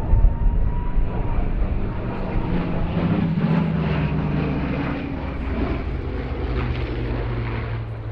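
Piston-engined warbird propeller aircraft flying past, a steady engine drone that is strongest a few seconds in.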